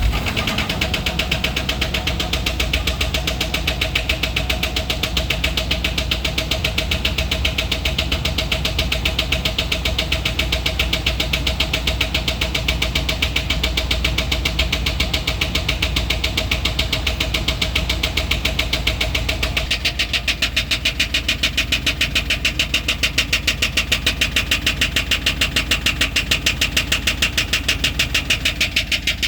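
Truck engine idling with a fast, even rattling tick, which the owner suspects is coming from the catalytic converter. The pulsing rattle grows more pronounced about two-thirds of the way through.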